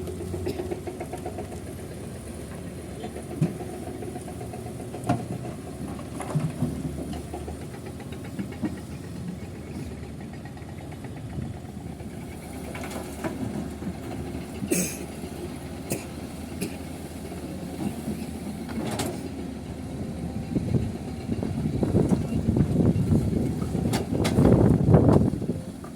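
Heavy construction machinery running with a steady low diesel engine rumble, with scattered knocks and clanks; the rumbling swells louder for a few seconds near the end.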